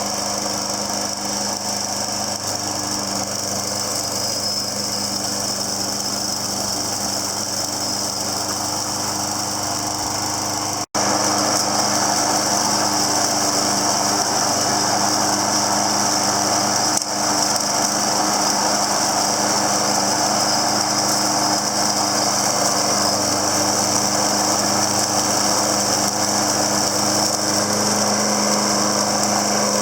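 Troy-Bilt TB230 walk-behind mower's small Briggs & Stratton engine running steadily while mowing and mulching grass and leaves. About a third of the way through it drops out for a split second and comes back a little louder.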